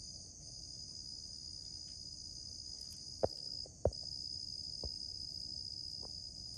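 Night insect chorus: a steady, shrill, high-pitched trill of crickets that drops out for a moment now and then. Four short sharp clicks cut in over it, the two loudest a little past three seconds and just before four seconds.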